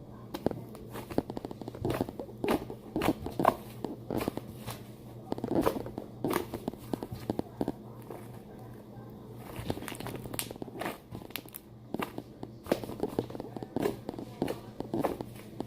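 Fluffy slime made with shaving foam being squeezed and stretched by hand, giving an irregular run of small sticky crackles, pops and squelches. There is a pause in the middle.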